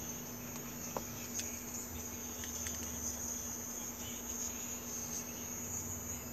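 Faint, steady high-pitched chirring of an insect chorus, with a low steady hum beneath it and a small click about a second in.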